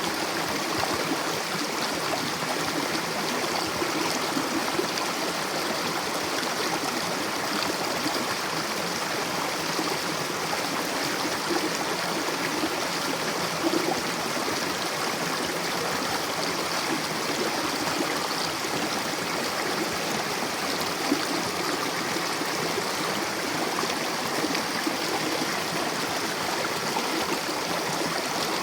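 Mountain river rushing and gurgling over rocks: a steady, continuous water noise with small splashes here and there.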